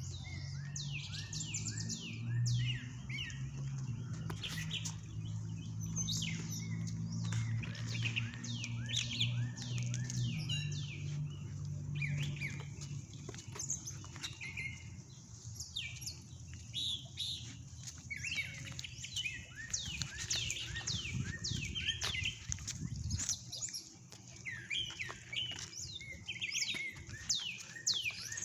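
Songbirds chirping and singing in quick, repeated falling notes throughout. A low steady hum sits under them for the first twelve seconds or so, then fades out.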